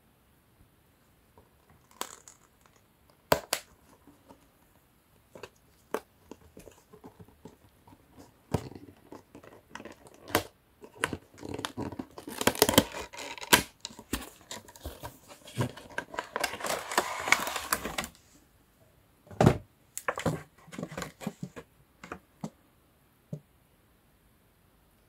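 A cardboard action-figure box being opened by hand: scattered sharp clicks and knocks of the box and its tuck flap, then several seconds of dense rustling as the clear plastic tray is pulled out, stopping about 18 seconds in, followed by a few more knocks.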